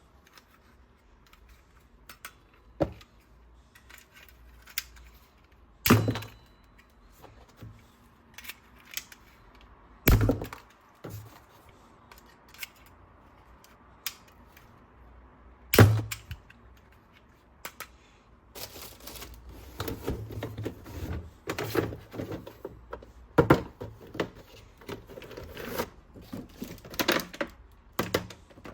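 Toys being handled during unboxing: a few separate sharp knocks and clicks several seconds apart, then busier clicking and rustling over the last ten seconds.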